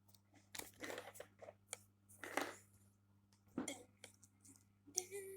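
Scattered small handling noises: a few short clicks and rustles, then a sharp click near the end followed by a steady, even tone.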